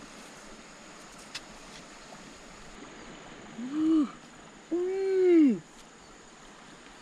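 Two short wordless vocal sounds from a woman's voice, each rising then falling in pitch like an "ooh". The second is longer and louder. A stream flows steadily in the background.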